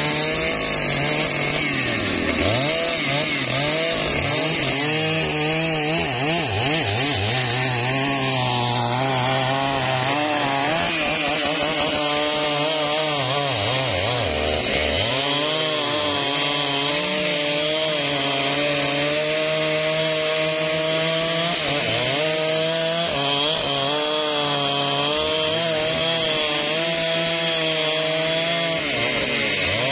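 Large two-stroke chainsaws run at high throttle, cutting through a thick trembesi (rain tree) trunk. The engine pitch sags and recovers several times as the chain loads up in the wood.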